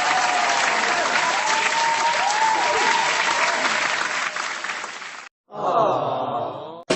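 Crowd applause and cheering, used as a stock sound effect, with a few wavering higher pitches through it; it fades out about five seconds in. A short, different pitched clip follows near the end.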